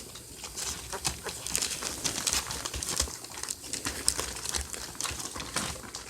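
Irregular rustling and crinkling, a dense run of small crackles and scrapes.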